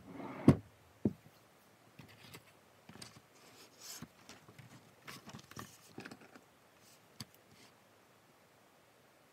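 A loud thump on a desk about half a second in and a sharp knock a moment later, then soft paper rustling and light clicks and taps as a notebook is opened and a pen is handled.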